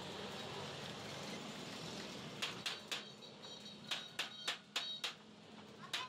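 Steady workshop background noise, then, from about two and a half seconds in, a series of sharp ringing metal knocks in quick groups of two and three.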